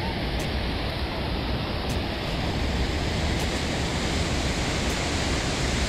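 Steady rushing wash of surf and shallow sea water splashing around the legs as the detectorist wades.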